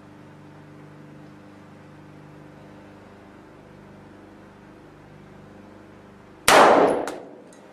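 A single shot from a 9mm carbine about six and a half seconds in: a sudden loud crack that rings out and fades over about a second. A steady low hum runs underneath.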